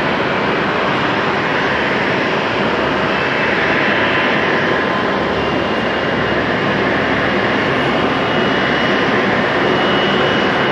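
Boeing 777-200's twin turbofan jet engines running at low taxi thrust: a steady loud rush with a constant high whine.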